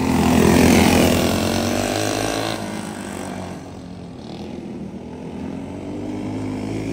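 Racing go-kart engines running at speed. The loudest moment is a kart passing close by about a second in; the sound then fades as the karts move away and builds again near the end as they come back around.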